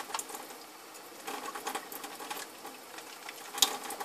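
Bar of handmade soap being rubbed into a lather between wet hands: irregular wet squishing and small clicks, with one sharper click near the end.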